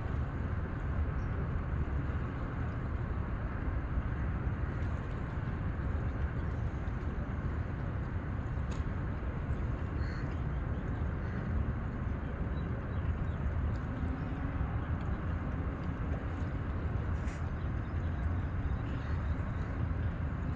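Steady low rumble of outdoor background noise, with a faint engine hum that rises and then falls in pitch around the middle.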